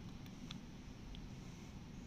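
A few faint clicks from a finger pressing the buttons of a Daikin wired remote controller, over a low steady background hum.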